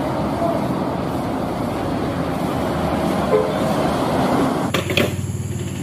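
Road traffic noise as an intercity coach bus drives up and passes below, its engine and tyres a steady rush that swells slightly. A little before the end it cuts off abruptly, giving way to a low steady hum with a couple of clicks.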